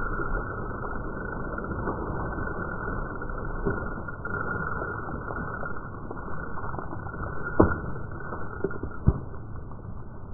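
Steady muffled noise with two sharp knocks, one about seven and a half seconds in and one about nine seconds in.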